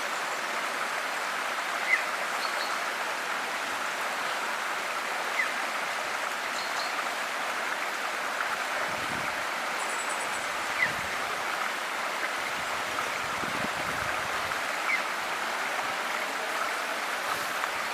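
A river flowing steadily with an even rushing sound. A few short, high bird chirps are scattered through it.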